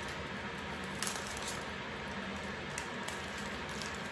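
Kitchen knife cutting a red onion on a cutting board: a handful of short, crisp cuts over a steady background hiss.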